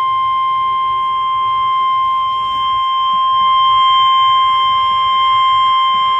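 NOAA Weather Radio's 1050 Hz warning alarm tone: one steady, high, unbroken tone held for several seconds, coming from a weather radio receiver. It is the alert signal that a warning broadcast, here a severe thunderstorm warning, is about to follow.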